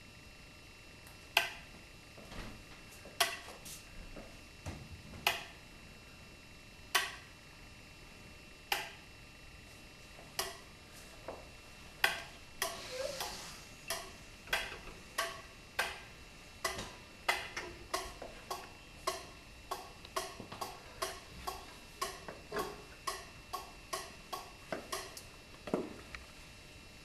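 A series of sharp taps. They begin slowly, about one every two seconds, then speed up steadily to about two or three a second.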